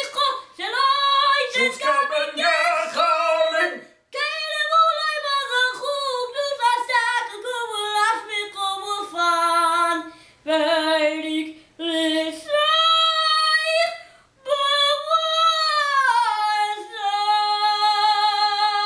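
A boy singing cantorial chant (chazzanut), with ornate wavering runs and trills broken by short breaths, ending on a long held note.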